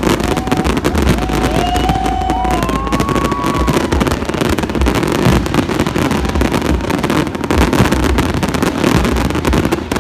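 Fireworks going off in a rapid, continuous barrage of crackles and bangs.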